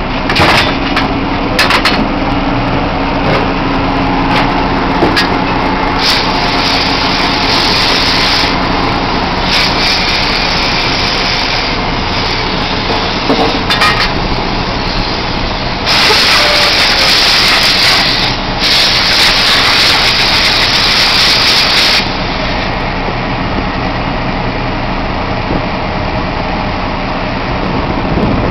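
Drilling rig machinery running steadily while a drill-pipe connection is made, with a few metal clanks near the start and several long hisses partway through, the longest lasting about six seconds.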